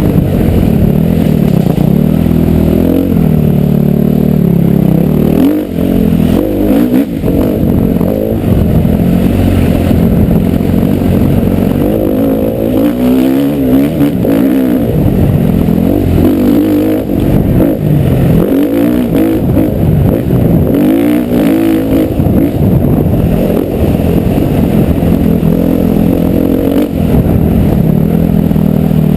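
Motocross bike engine being ridden hard, loud and muffled, its pitch rising and falling over and over as the throttle is opened and shut.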